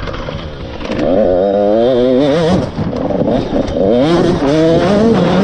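Husqvarna TC 85 two-stroke dirt bike engine revving hard under acceleration, its pitch rising and falling with the throttle. It is quieter at first and picks up about a second in, then backs off briefly a little under three seconds in before revving up again.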